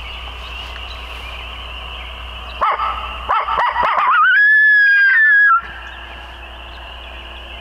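Hand-blown coyote howler locator call: a run of quick yips about three seconds in, then one long, high howl that breaks downward and cuts off. It is blown to make a roosted gobbler shock-gobble.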